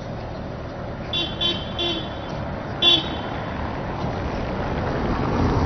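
A tram's warning signal sounds in four short blasts over about two seconds, meant to get the dog off the track in front of it. A steady low rumble of the tram and street runs beneath, growing louder near the end.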